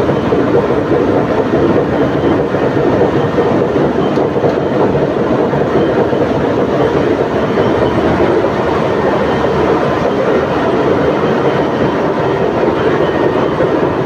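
Ship's engine room machinery running: a loud, steady drone with no let-up.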